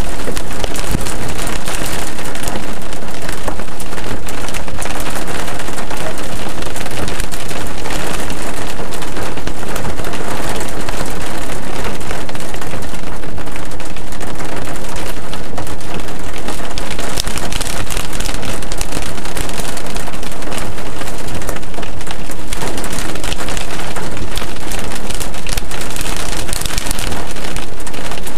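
Heavy rain falling on a car's roof and windshield, heard from inside the car as a loud, dense, unbroken stream of drops.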